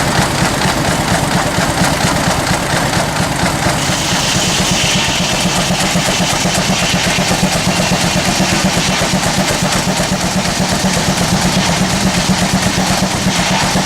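Steam traction engine running steadily on the belt to a sawmill, with a fast, even beat. About four seconds in a higher hissing whine joins.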